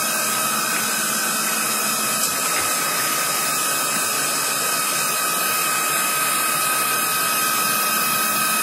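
Millport Blue Rhino 1660 bed mill running under power: a steady high whine over a hiss, with a faint low hum that fades out about two and a half seconds in.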